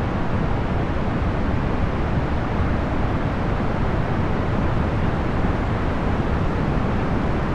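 Procedurally generated box-fan noise: a steady, even rush, weighted toward the low end, with no hum tones, clicks or changes.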